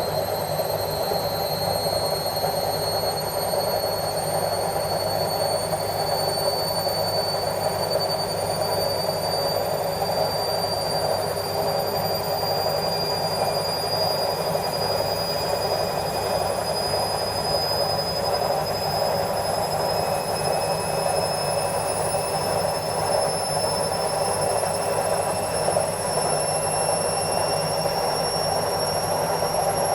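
Indesit washing machine on its spin cycle at full speed: a steady loud rumble with a high-pitched whine from the drum motor that climbs slowly in pitch as the drum keeps speeding up.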